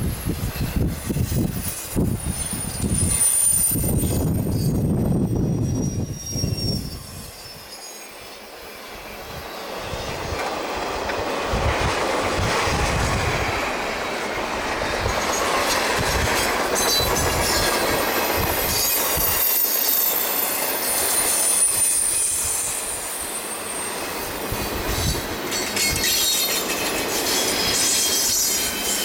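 Double-stack intermodal freight cars of a CSX train rolling past on a curve: a steady rumble with wheels clacking over the rail joints. Thin high flange squeal comes and goes above it.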